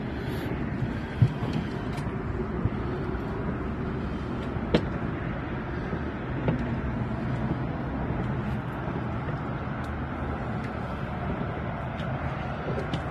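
Steady low background noise on a small fishing boat, with a few sharp knocks: one about a second in, a louder one near five seconds, and a softer one at about six and a half seconds.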